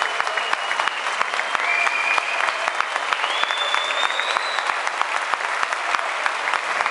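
Indoor audience applauding steadily, a dense patter of clapping, with a few high drawn-out whistles, one rising about three seconds in.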